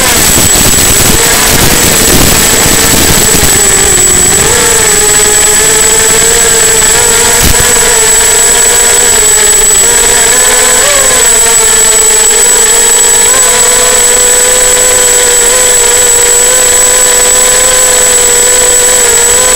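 EMAX 250 quadcopter's four EMAX MT1806 2280KV brushless motors spinning 5040 propellers: a loud, steady buzzing whine in low flight. There is rough wind-like rumble over the first few seconds, then a steadier hover tone with brief pitch shifts about four and eleven seconds in. A thin high-pitched tone runs underneath throughout.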